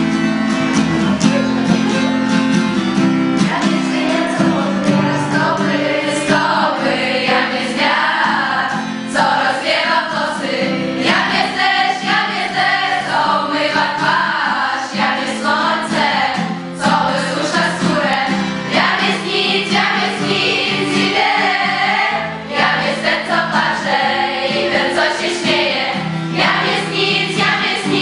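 A group of female voices singing a Polish scout song to guitar accompaniment. The guitar plays alone at first, and the voices join a few seconds in.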